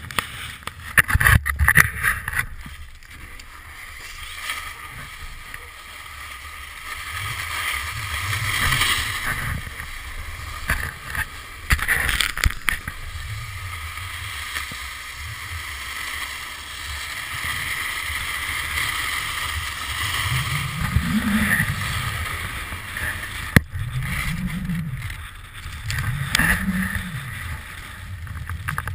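Muffled rumble of wind and movement against a pole-mounted action camera on a snowy slope, swelling and fading, with a few sharp knocks of the camera housing.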